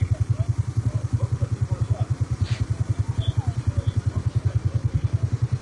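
Motorcycle engine running at idle close by, a steady fast beat of about twelve pulses a second.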